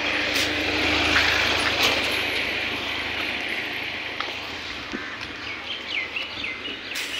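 Road traffic and movement noise as a steady hiss that slowly fades, with birds chirping near the end.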